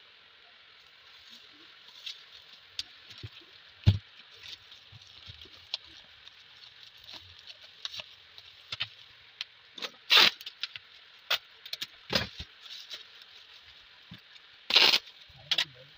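Bubble wrap and plastic packaging crinkling and rustling as it is handled, in irregular bursts of crackles. There are louder crinkles about ten and fifteen seconds in, and a sharp knock about four seconds in.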